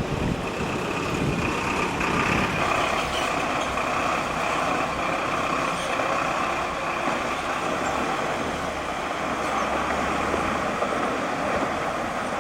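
Motor vehicle engine running steadily.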